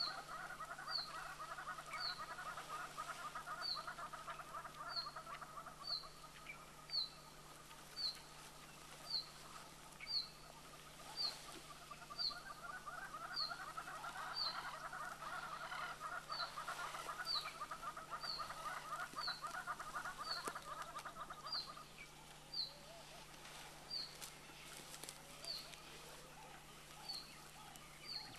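Wild birds calling in the bush: a sharp, short, falling high note repeated about once a second, over a dense chattering chorus that stops about 22 seconds in.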